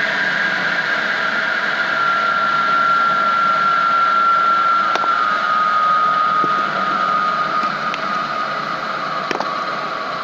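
Firewood circular saw spinning freely, driven by a small single-cylinder petrol engine running just above idle, with a steady high whine that slowly sinks in pitch. A couple of sharp clicks, about halfway and near the end.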